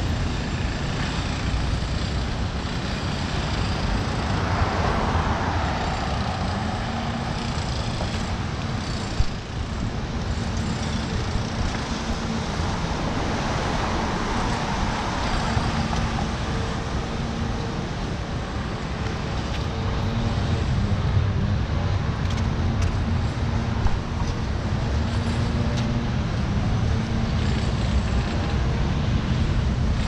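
Road traffic on a beachfront street: a couple of cars swell past and fade over a steady low rumble.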